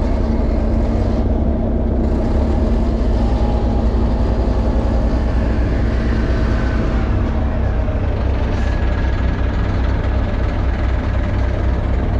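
Bobcat skid steer engine running steadily, a loud, even low-pitched drone.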